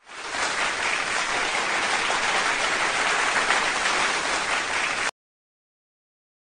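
An audience applauding steadily, then cut off abruptly about five seconds in.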